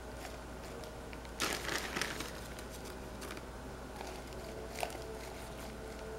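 Lettuce leaves crinkling and rustling as they are handled and pushed into thin plastic cups, in a short burst about a second and a half in, with a few light taps later.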